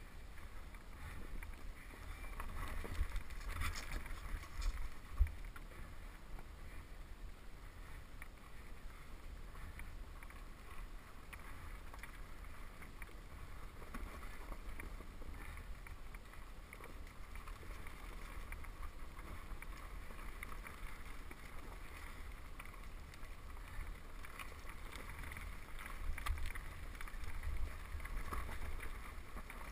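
KTM 250 XC-W dirt bike rolling down a rough, rocky trail, heard from the bike's camera: a low, muffled rumble of engine and wind on the microphone, with scattered knocks from the ground. The loudest knock comes about five seconds in.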